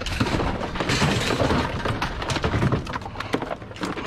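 Scrap metal and junk being pulled from a trailer load and thrown onto a pile on concrete: continuous clattering, clanking and scraping, easing briefly near the end.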